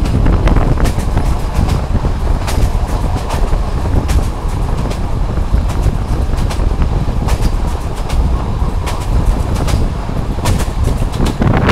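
Passenger train running along the track, heard from an open carriage window: a steady low rumble of wheels on rail, with irregular sharp clicks as the wheels pass over rail joints.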